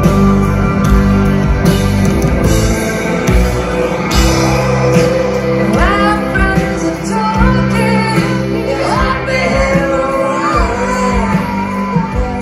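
Live rock band heard through a festival PA from within the crowd: sustained chords over bass. A woman's lead vocal comes in about six seconds in.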